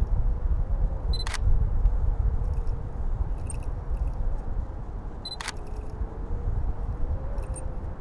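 Wind buffeting the microphone of a kite-borne camera rig, a low rumble with a faint wavering hum. Two sharp clicks, about four seconds apart, each just after a short high beep.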